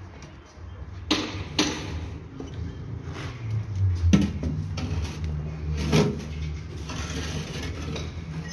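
Bricks being handled and laid on a mortar bed: a few sharp knocks and clacks as bricks are set down and tapped into place, over a low steady hum.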